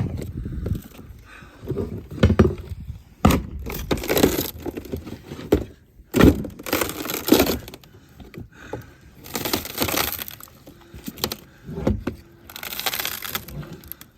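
Boat deck being torn apart: a run of knocks and bursts of cracking and crunching as old deck wood is pried and broken up.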